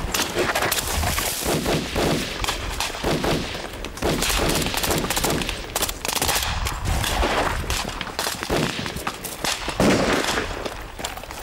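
Sustained gunfire from several rifles, the shots fast, irregular and overlapping, loudest just before the end.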